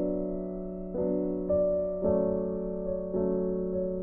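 Slow solo piano background music, with a new note or chord struck about once a second and left to ring and fade.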